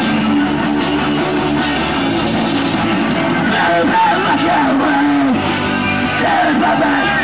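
Hardcore punk band playing live: distorted electric guitar and drum kit, with the singer shouting into the microphone from about halfway through.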